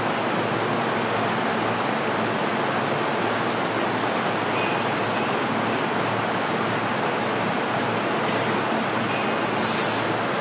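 Steady, even noise inside a JR East E233-series commuter train car, with a faint low hum.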